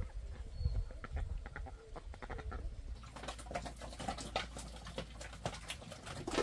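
Farm animals calling and moving about, with many short ticks and clicks that grow busier about halfway through.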